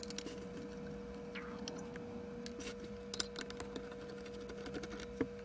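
Faint, irregular clicks and ticks of a screwdriver turning small screws out of a sheet-metal camera housing and of the metal parts being handled, over a low steady hum.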